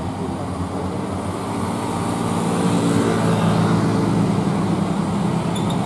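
Diesel engine of a fully loaded Hino 500 dump truck labouring slowly up a steep incline, a steady low drone that grows louder as the truck draws near, from about two seconds in.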